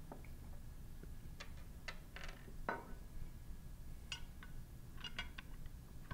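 Scattered light metallic clicks and clinks of pump parts being handled: a leg bracket and through bolts being picked up and set against the diaphragm pump's outer chamber.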